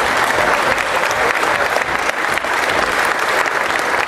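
Audience applauding, the clapping of many hands dense and even.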